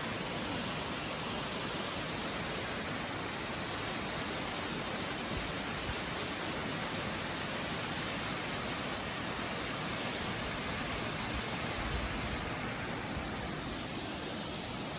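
Small waterfall pouring over a rock bluff: a steady, even rush of falling water.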